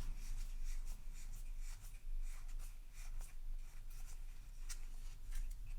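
Trading cards being handled and slid against one another as a booster pack's cards are flipped through: soft, irregular rubbing with light ticks.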